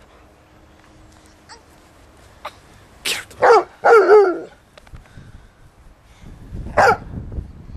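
Dog barking in play: a quick run of about four barks in the middle, then one more bark near the end.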